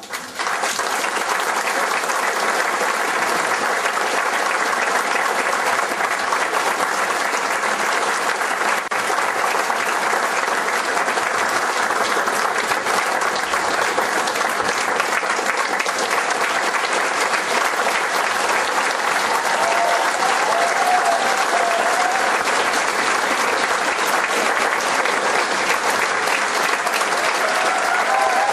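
A long, steady round of applause from the audience and the children on stage, breaking out right as the choir's song ends.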